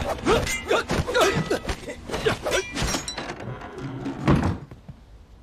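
A rapid run of sharp knocks and clattering hits with short metallic rings, thinning out after about three seconds, then one last heavy thud about four seconds in.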